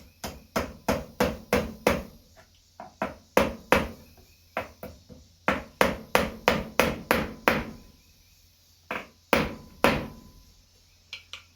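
Hammer driving small nails into a boot to fasten loose rubber pieces back on: runs of quick taps, about two to three a second, broken by short pauses, then two heavier blows near the end.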